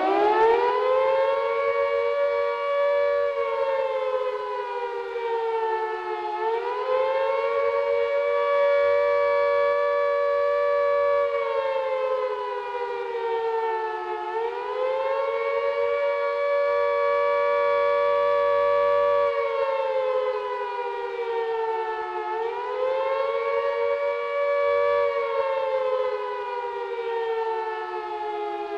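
Wartime air-raid siren sounding the rising and falling wail of the alert warning. It winds up at the start, then sinks and climbs back three times about every eight seconds, and is falling away near the end.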